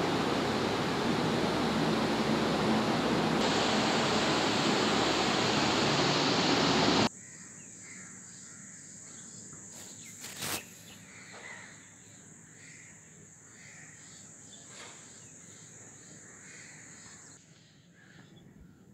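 Loud steady rushing noise that cuts off abruptly about seven seconds in. After it comes a quiet outdoor ambience with a steady high hiss and faint bird calls about once a second.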